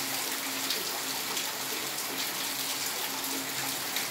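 Heavy rain falling steadily, a dense even hiss of a downpour.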